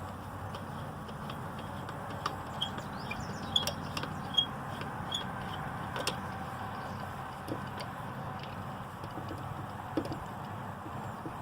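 Scattered small clicks and taps of a screwdriver working screws into a chainsaw's magnesium housing, over a steady background noise.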